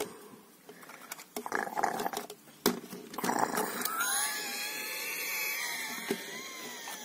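A dragon's cry voiced for a toy dragon figure: short growls in the first few seconds, then a long wavering call from about four seconds in that falls slightly in pitch.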